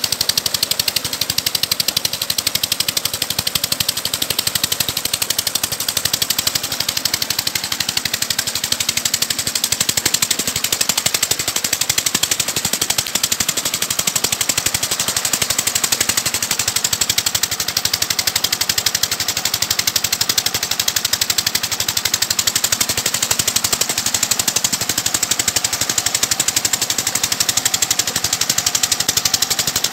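Stationary diesel engine running steadily, driving a tubewell pump, with a fast, even exhaust beat. Water gushing from the pump's 6-inch outlet pipe splashes into a concrete tank.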